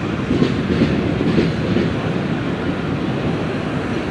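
Freight train of covered hopper cars rolling past at steady speed: a continuous rumble of steel wheels on the rails, with repeated clacks as the wheels run over the track.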